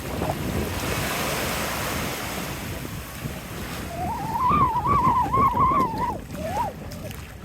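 Small waves washing on a sand beach, with wind on the microphone. About four seconds in, a high wavering call lasts roughly two seconds, followed by a short one.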